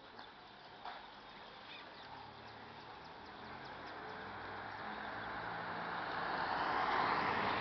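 A car driving past: its tyre and engine noise grows steadily over several seconds, is loudest near the end, then begins to fade.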